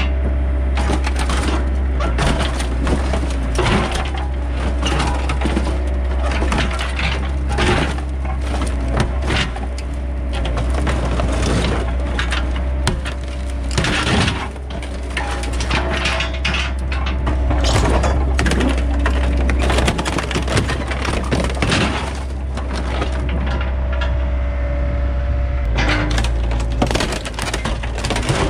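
An excavator's diesel engine runs steadily while its bucket and thumb crush and tear the rusted cab of a pickup truck, with constant irregular crunching, cracking and breaking of sheet metal and windshield glass.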